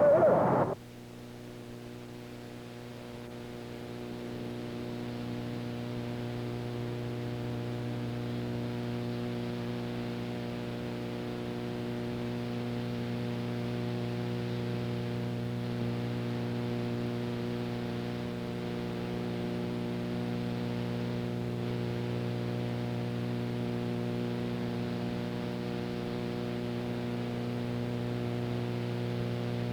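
Loud sound cuts off abruptly under a second in, leaving a steady electrical mains hum with many buzzing overtones and faint hiss, with no programme sound over it.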